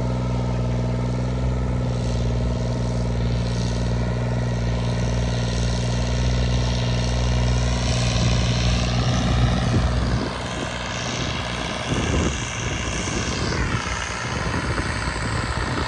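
John Deere 5105 tractor's turbocharged diesel engine running with a steady deep drone that grows a little louder. About ten seconds in, the note breaks up and turns rougher and uneven, with short pitch glides near the end.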